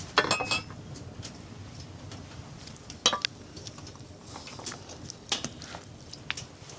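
Metal cookware and utensils clinking and knocking: a quick cluster of clinks right at the start, then single knocks about three and five seconds in. A steady low rumble runs underneath.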